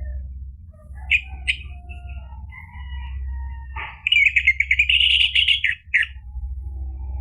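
Orange-headed thrush calling and singing: scattered short chirps and soft whistles, then a loud, fast run of song about four seconds in that lasts nearly two seconds. A steady low hum runs underneath.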